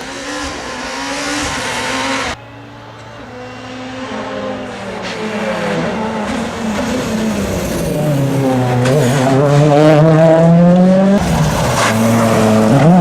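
2011 World Rally Cars, 1.6-litre turbocharged four-cylinders, revving hard on a stage. It is edited from separate passes, with a sudden cut about two seconds in. After the cut an engine grows steadily louder as a car approaches, its note climbing and falling through the gears. It is loudest near the end.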